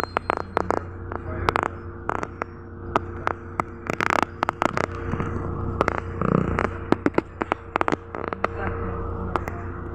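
Inside a MAZ-107 city bus standing with its engine idling: a steady low hum, with irregular sharp clicks and knocks throughout.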